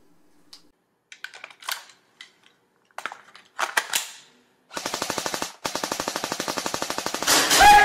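Gunfire sound effects: a few scattered single shots and clicks, then two long runs of rapid automatic fire, ending with a short tone.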